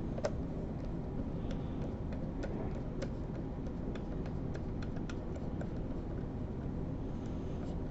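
Faint, irregular small clicks of a T5 Torx screwdriver turning a set screw into a stereo microscope, over a steady low hum.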